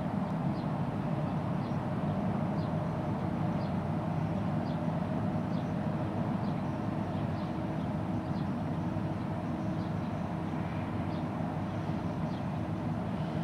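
Steady low drone of a passing container ship's engines and machinery, with a few held hum tones under it. Faint short high chirps repeat about once a second above it.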